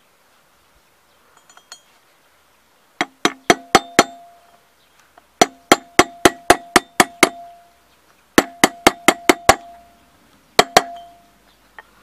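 Steel hammer striking a drift to drive a valve guide in a scooter cylinder head: four runs of quick blows, about four a second, each with a short metallic ring.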